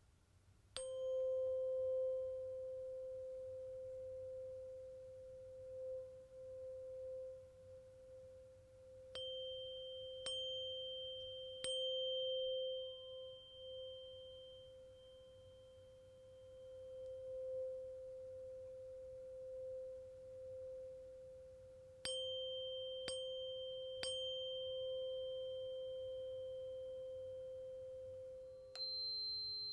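A tuning fork is struck and left ringing with a pure, steady tone around 500 Hz. Each strike brings a brief high clang. It is re-struck three times in quick succession twice, and near the end a second, lower-pitched fork takes over.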